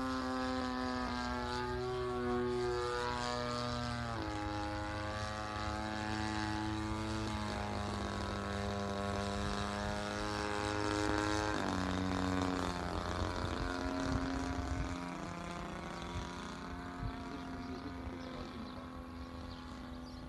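Extra 360 aerobatic plane flying overhead, its propeller engine giving a steady droning note. The note shifts in steps as the throttle changes: it drops about four seconds in and again around seven seconds, jumps about twelve seconds in, and changes again near fifteen seconds. It grows a little fainter towards the end.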